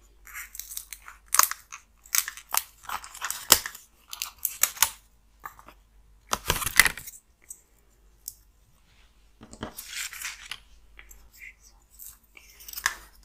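Printed foam-board 3D puzzle sheet and small pieces handled close to the microphone: irregular sharp clicks and taps mixed with short crinkly rustles, with longer rustling bursts about six and a half and ten seconds in.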